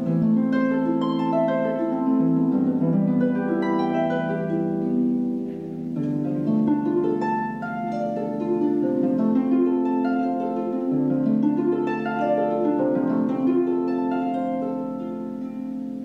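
Solo concert harp being played: quick runs of plucked notes ringing over sustained low bass notes, getting quieter near the end.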